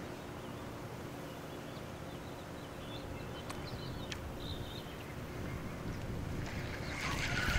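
Quiet outdoor background: a steady low rumble with wind on the microphone, and a few faint high chirps about three to four and a half seconds in.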